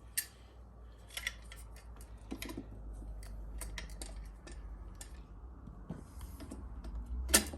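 Scattered light clicks and taps from handling the parts of an upright vacuum cleaner, with a sharper knock near the end.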